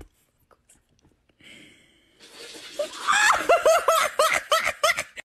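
A person laughing hard in a quick run of short bursts, starting about two seconds in after a few faint ticks.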